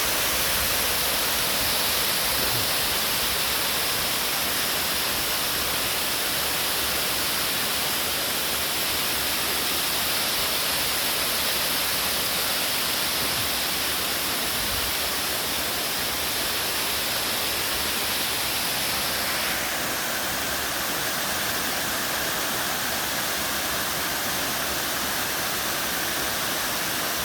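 Waterfall rushing with a steady, full roar of falling water; about twenty seconds in it turns a little duller.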